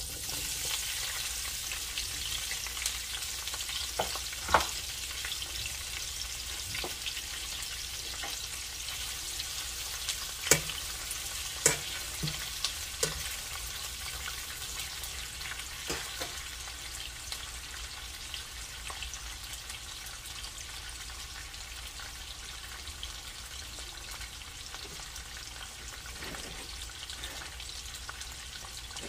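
Sliced onions and bell peppers sizzling in hot oil in a nonstick skillet, a steady sizzle that eases slightly. A slotted spatula stirring them clicks sharply against the pan several times.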